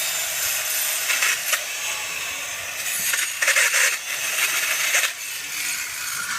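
Wood being sawn: a steady rasping, with louder strokes about a second, three and a half, and five seconds in.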